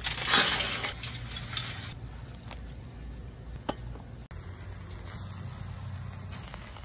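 Lit charcoal poured from a chimney starter onto the grate of a kettle grill: a loud rattling rush in the first second or so. Then a steadier, quieter hiss with a few sharp clicks.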